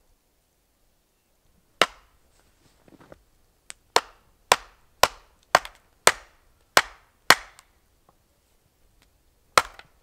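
Axe blows chopping into a wooden log: about nine sharp strikes, starting about two seconds in, mostly about half a second apart, with one more after a short pause near the end.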